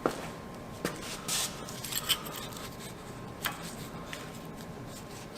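Scattered sharp metal clicks and clinks with a short scrape, from wrenches and gears being worked to roll the spider gears into a Ford 9.75 limited-slip differential carrier against its clutch-pack preload.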